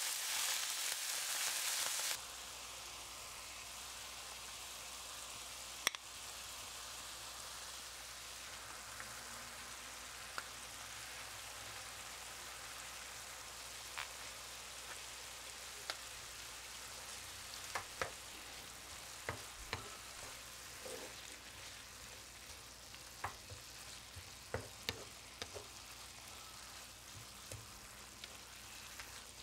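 Chopped shallots, garlic and chilies sizzling in a non-stick frying pan. A loud sizzle as water goes into the hot pan drops suddenly about two seconds in to a quieter steady simmering hiss. Scattered clicks and scrapes of a spatula against the pan follow, most of them in the second half.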